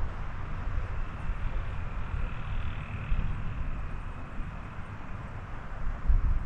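Wind buffeting the microphone in gusts, a low rumble over a steady hiss.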